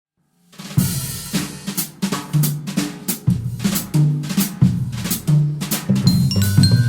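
Intro music: a drum-kit beat with kick and snare over a bass line, starting about half a second in. High, clear ringing notes join near the end.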